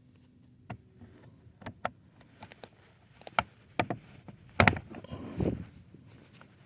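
Hands working plastic dashboard parts and control cables into place: scattered sharp clicks and knocks, the loudest a quick double knock about four and a half seconds in, followed by a short rustling scrape.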